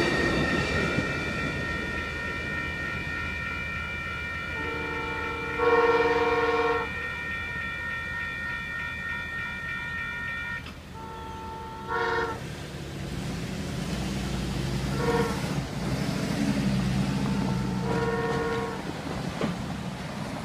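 Amtrak locomotive horn sounding the grade-crossing signal, long, long, short, long, as the Sunset Limited heads off toward the next crossing. A steady ringing from the crossing's warning bell runs under it and stops about ten seconds in, when the crossing clears.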